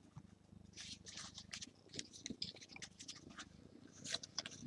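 Stadium Club soccer trading cards being handled and leafed through by hand: quiet, irregular rustling and flicking of card stock, starting about a second in.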